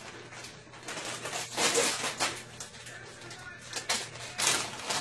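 Crinkling and rustling of plastic food packaging, with irregular crackles, as toppings are shaken onto a salad.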